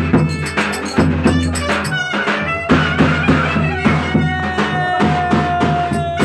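Turkish folk dance tune (oyun havası): a melody instrument plays over a steady drum beat, holding one long note near the end.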